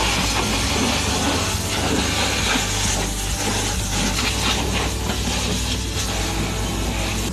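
High-pressure water jet from a hand-held car-wash nozzle spraying the underside and wheel arch of a car, a dense hiss with irregular spattering, over a steady low hum.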